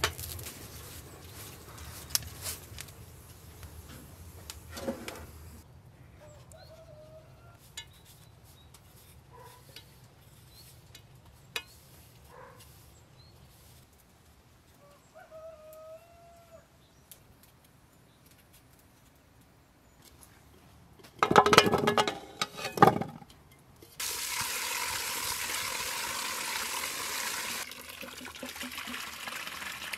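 Chickens calling now and then, faintly at first and loudly for about two seconds around 21 seconds in. From about 24 seconds in, water runs steadily, changing and softening slightly near 28 seconds.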